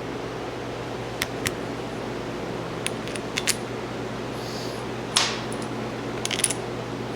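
Small metal tools and parts clinking and tapping against each other, about eight sharp clinks spread through, the loudest about five seconds in, over a steady low hum.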